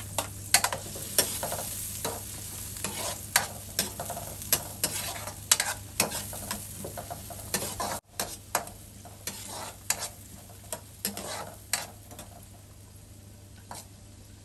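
Chopped red onion sizzling in melted butter in a metal wok, stirred with a metal spatula that scrapes and taps against the pan many times. There is a brief gap about halfway through, and the sizzle softens near the end.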